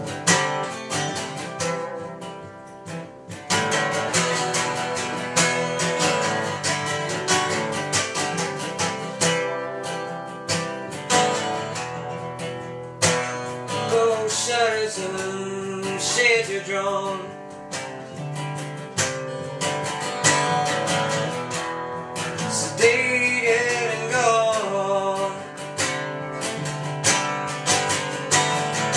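Acoustic guitar strummed steadily in a song, with a wordless vocal line coming in twice, once around the middle and again near the end.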